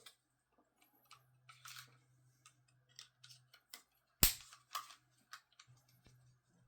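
Scattered light plastic clicks and taps from handling a toy RC tank and its remote, with one much louder sharp snap about four seconds in. A faint low hum runs underneath.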